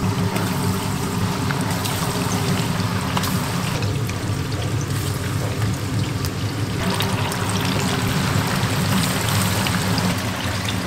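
Battered chicken deep-frying in a commercial fryer: hot oil bubbling and sizzling steadily, with small crackling pops, over a steady low hum.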